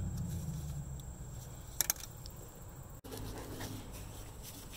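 Two sharp plastic clicks close together, about two seconds in, as an electrical wiring connector is unclipped by gloved hands, with faint rustling handling noise around them. A low hum fades out during the first second.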